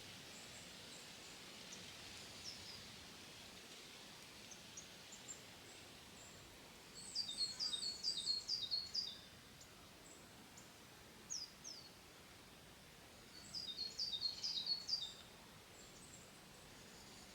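A small bird calling: scattered single high chirps, then two bursts of rapid, repeated, downward-sliding high notes, about seven seconds in and again near the end, over a faint steady hiss.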